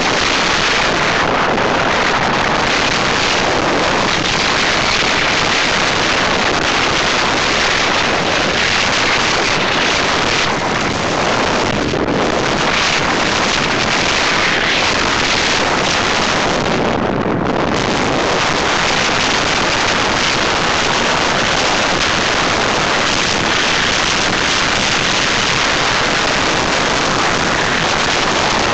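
Steady loud wind rush over the microphone of a camera carried down a groomed ski slope at speed, easing briefly twice, about 12 and 17 seconds in.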